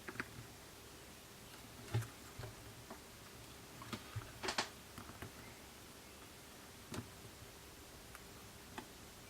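A few small, sharp clicks and taps of tiny phone parts being handled and pressed into place during a smartphone repair, scattered a second or two apart, the loudest about two seconds in, a short cluster around four and a half seconds, and another near seven seconds.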